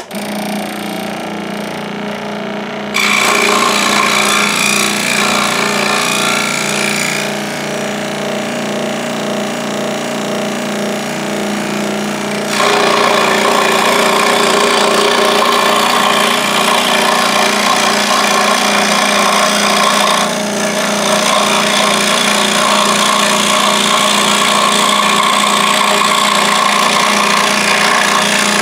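Scroll saw switched on and running, its reciprocating blade cutting through stacked wood blanks to cut out a pattern. It grows louder in two steps, about three seconds in and again near the middle, with a steady motor hum underneath.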